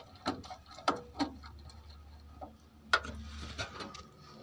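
Screwdriver working the terminal screws of a moulded-case circuit breaker as the wires are tightened in: a few sharp metal clicks at irregular intervals, the loudest about three seconds in.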